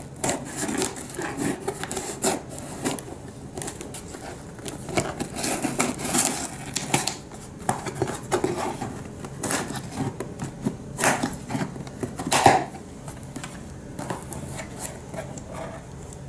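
Scissors cutting and scraping through packing tape on a cardboard shipping box: irregular snips, scrapes and cardboard rubbing, with a louder knock about twelve seconds in.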